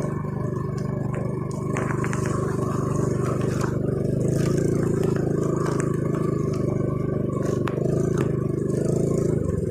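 Vehicle engine running steadily at low speed, with a few light clicks and rattles.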